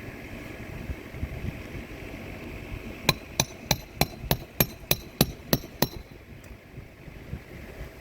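A hammer struck about ten times in a quick, even rhythm of roughly three blows a second, during a roof shingle repair, over low wind rumble on the microphone.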